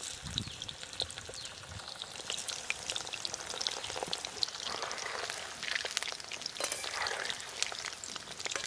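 Hot mustard oil sizzling and crackling steadily as boiled chitol fish dumplings deep-fry in a wok.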